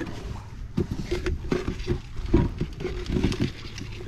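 Irregular knocks, taps and clatter of handling on a plastic kayak deck, as hands work a small bait crab and a red plastic bait bucket.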